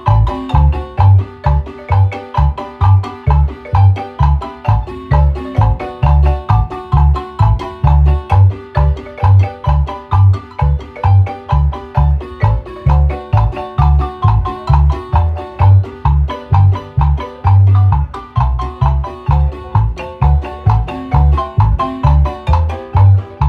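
Guatemalan marimba music: quick repeated mallet notes carrying the melody over a steady, evenly spaced low bass beat of about two to three strokes a second.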